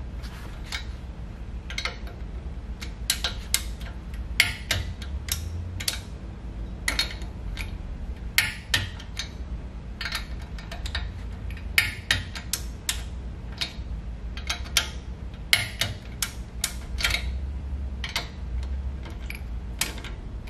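Click-type torque wrench ratcheting and clicking as front brake bolts on a 2008 Toyota FJ Cruiser are torqued to factory spec: sharp metallic clicks in irregular bursts, the wrench's click marking that a bolt has reached torque.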